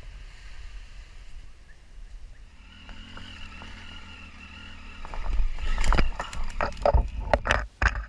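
Triumph Tiger 800 XC's three-cylinder engine running, then, from about five seconds in, a string of loud knocks and crashes as the motorcycle goes down into the undergrowth.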